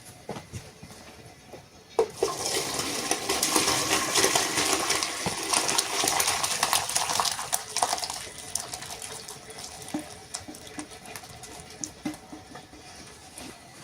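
Water running or splashing for about six seconds, starting suddenly about two seconds in, followed by scattered small clinks and knocks.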